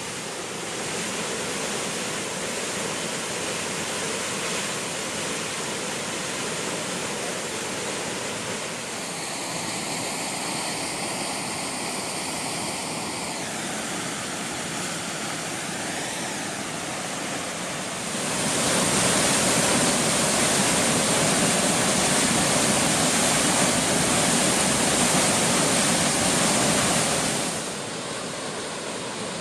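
Waterfall on a mountain creek, a steady rush of falling water. About two-thirds of the way in it becomes suddenly louder and brighter, then drops back to the softer rush near the end.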